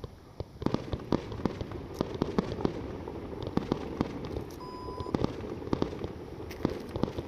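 Fireworks display: a fast, irregular run of sharp bangs from bursting aerial shells over a steady crackling rumble.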